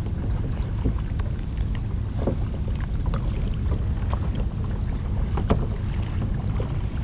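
Wind rumbling on the microphone over choppy river water around kayaks, with a few scattered short splashes and knocks as a swimmer is helped back to the boats.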